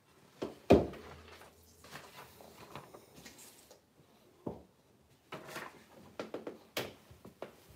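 Handling noises at close range: a sharp knock less than a second in, another near the middle, and a run of small clicks and rustling in the second half.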